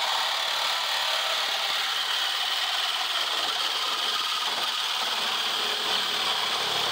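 Reciprocating saw fitted with a Starrett blade cutting through a steel bar of a vehicle chassis, running steadily with a high, rasping sawing noise.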